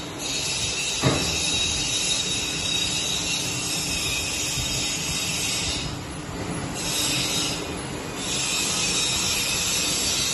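Electric motor and worm gearbox driving a stainless steel paddle mixer, running with a steady hiss-like whirr. A single sharp knock comes about a second in, and the high hiss dips briefly twice past the middle.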